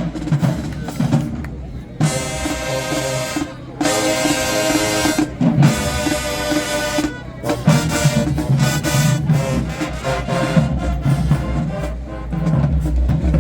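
High school marching band playing: the drumline beats, then the brass section sounds three long, loud held chords, and drums and horns carry on together after them.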